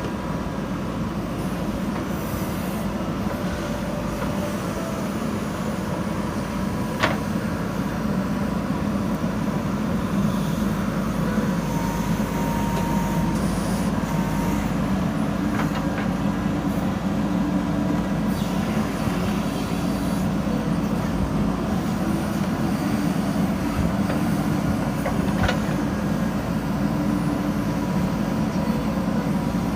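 JCB 3DX backhoe loader's diesel engine running steadily under digging load, with three short sharp knocks spread through the stretch.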